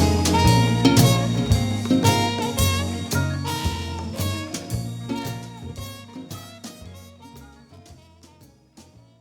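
Instrumental close of a gospel song played by a band with regular drum strokes, fading out steadily until it is barely audible at the end.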